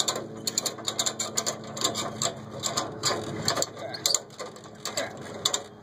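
A ratchet strap's ratchet clicking in quick runs as it is cranked, pulling a mower's belt tensioner pulley back to make slack for a new belt.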